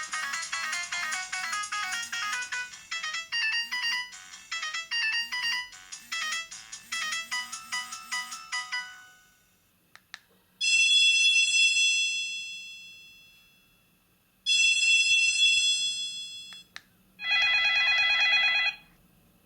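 Maxcom MM462BB mobile phone playing ringtones through its loudspeaker. A quick electronic melody runs for about nine seconds and fades out. Then come two separate sustained bell-like tones a few seconds each, and a short warbling tone near the end, each started after a small click.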